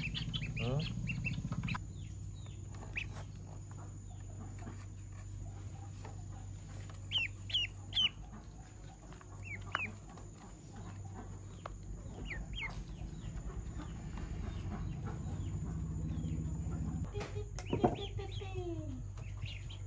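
Ducklings peeping: scattered short, high calls, a few in quick clusters, over a steady low hum that stops near the end. A single knock shortly before the end.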